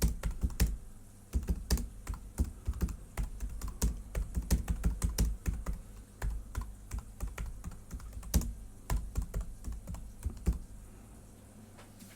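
Typing on a computer keyboard: a quick, irregular run of keystrokes that stops about ten seconds in.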